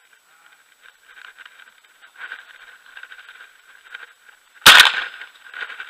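A single loud shotgun shot about three-quarters of the way in, fired at a dove in flight, after a few seconds of faint rustling.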